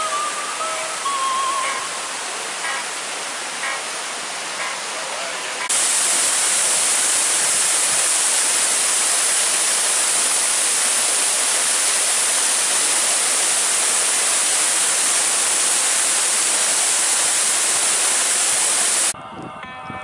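Waterfall, a steady rush of falling water. About six seconds in it abruptly becomes louder and brighter, then cuts off suddenly near the end; a few faint high tones sound over it in the first two seconds.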